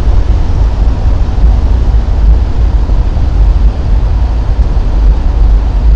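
A car driving along a road: a loud, steady low rumble of road and wind noise with no distinct engine note.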